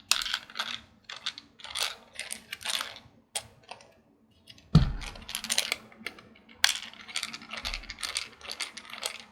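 Small metal screws being unscrewed from a 2.5-inch laptop hard drive and its caddy with a screwdriver: quick runs of light metallic clicks and clinks, with a louder knock just before five seconds in.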